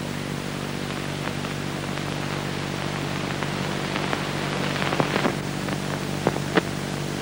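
Steady hiss and low hum of an old film soundtrack, with a few soft clicks about two-thirds of the way through.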